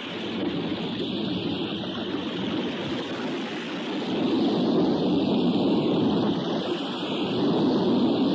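Ocean surf sound effect: a continuous wash of breaking waves that swells louder about four seconds in.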